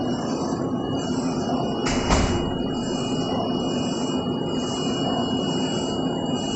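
Audley UV 9060 flatbed UV printer running, its print-head carriage and UV curing lamp shuttling across the bed, with a steady high whine over a low hum. A sharp knock sounds about two seconds in.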